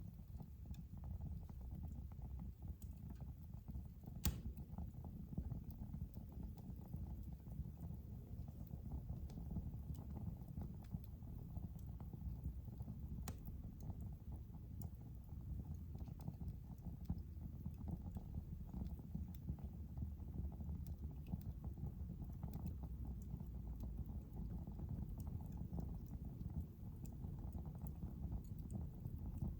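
Wood fire burning in a fireplace: a steady low rumble of flames with scattered crackles and snaps, the sharpest pop about four seconds in.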